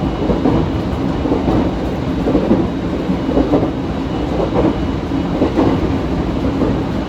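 ET127-series electric train running along the line: a steady rumble of wheels on rail with a few knocks about a second apart in the middle, and a faint steady high whine.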